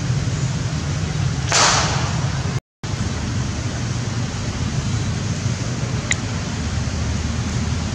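Steady outdoor background hiss with a low rumble, with a brief whoosh about one and a half seconds in. The sound drops out completely for a moment soon after, then resumes.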